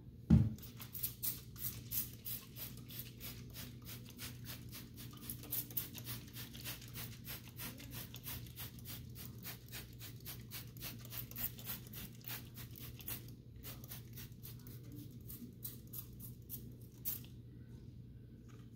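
Trigger spray bottle of Counter Clean cleaner pumped over and over, short sprays about two or three a second, stopping near the end, over a low steady hum.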